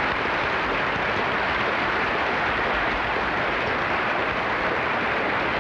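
Television studio audience applauding steadily.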